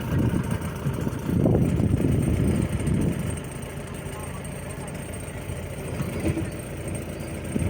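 Engine running with an uneven, louder rumble for about the first three seconds, then settling to a quieter, steady run.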